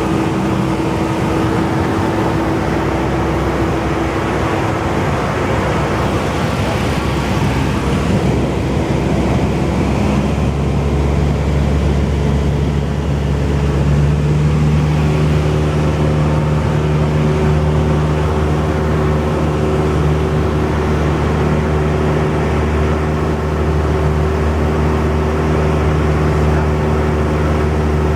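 Cessna 172's piston engine and propeller running steadily in flight, a loud, even drone. Its tone changes about halfway through, as a lower hum grows stronger.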